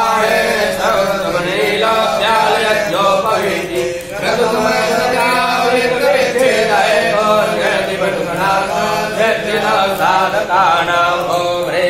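Hindu priests chanting Sanskrit mantras in a continuous recitation, with several voices overlapping over a steady low tone.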